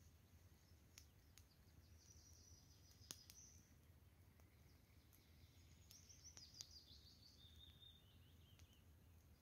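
Near silence in woodland: faint songbirds calling twice, the second time a falling run of notes near the end, over a low steady rumble with a few faint clicks.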